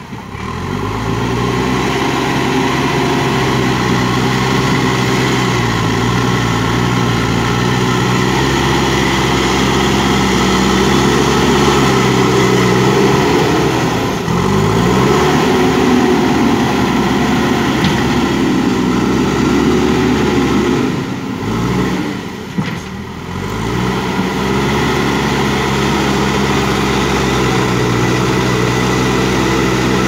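JCB backhoe loader's diesel engine working under load as the front bucket pushes soil, running steadily. The engine note sags and climbs back twice, around the middle and about three quarters through, the second time with a brief drop in loudness.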